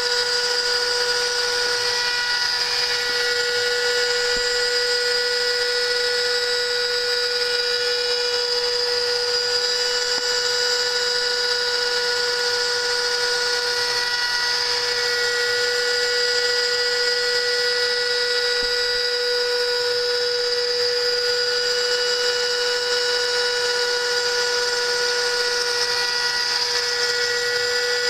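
CNC spindle milling 5 mm aluminium sheet: a steady high-pitched whine at constant speed with the hiss of the cutter in the metal, unchanging throughout.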